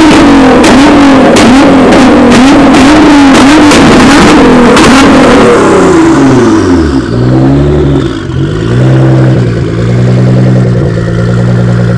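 Nissan GT-R's twin-turbo V6 revved hard in quick repeated blips, with sharp crackles over the top. After about six seconds the blips become slower and lower, and it settles to a steady idle near the end.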